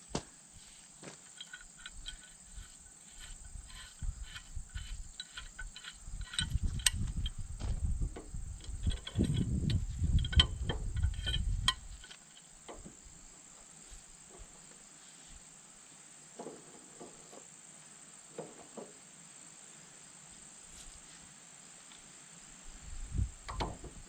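Metal clicks and scrapes as a pipe wrench works the end of a hydraulic cylinder, with a louder low rumble of handling between about six and twelve seconds. A steady high insect drone runs underneath.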